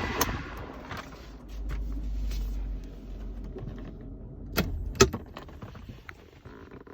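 Clicks and handling knocks inside a car cabin, with a brief low rumble near the start and two sharp clicks about half a second apart near the middle.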